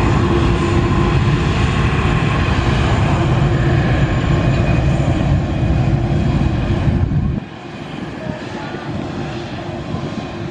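Jet airliner engines running loud, a steady roar with a high whine. About seven seconds in the sound drops abruptly to a quieter, more distant jet roar.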